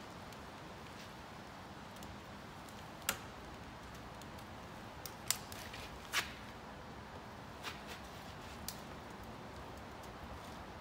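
A screwdriver clicking and scraping against a Subaru's plastic front grille emblem as it is pried at, in five or so short, sharp clicks spread over several seconds, over a steady faint hiss.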